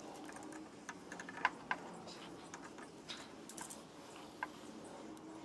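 Light, irregular clicks and taps of small metal and plastic parts being handled as a lawnmower carburetor is fitted back onto the engine and its fuel line hooked up, with a few quick clicks together about three and a half seconds in.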